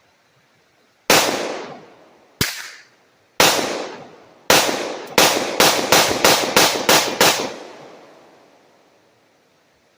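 Gunfire at a shooting range: four single shots about a second apart, then a rapid string of about eight shots at roughly three a second. Each shot has a short echoing tail.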